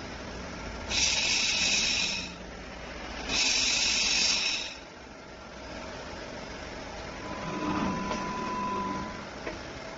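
A fiber laser welding machine's head firing in two hissing bursts, each a little over a second, as its gas jet blows. Between and after the bursts the machine runs with a lower steady noise, with a faint brief tone and a single click near the end.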